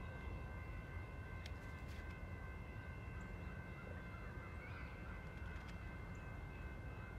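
Faint, distant locomotive air horn, a five-chime K5LLA, sounding one steady held chord with no change in pitch, over a low rumble.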